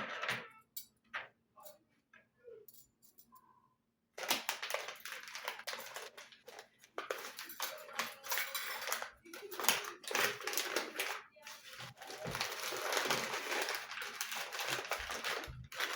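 A few small clicks and taps, then from about four seconds in, continuous crackly rustling and crinkling of handled material that swells and dips in loudness.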